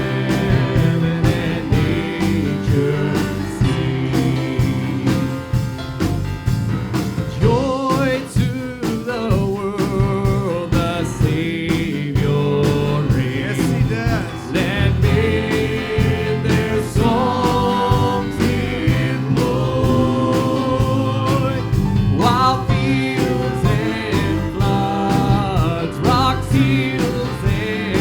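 A live worship band playing a country-gospel style song with sung vocals over guitar and a steady beat.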